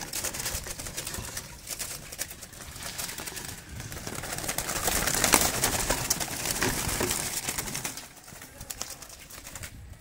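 Doves in a wire-mesh aviary, with rustling and scattered clicks. The noise grows louder through the middle and drops off near the end.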